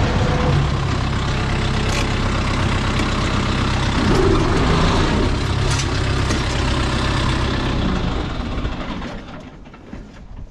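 Tractor engine running steadily, then dying away about eight to nine seconds in as it is shut off.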